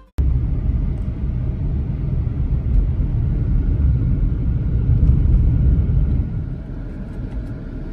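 Low, steady rumble of a car being driven: road and engine noise picked up while on the move.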